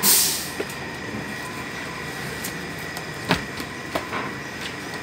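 Cardboard perfume-box covers being handled on a work table: a brief rustling swish at the start, then scattered light taps and knocks, the loudest about three seconds in, over a steady background hum.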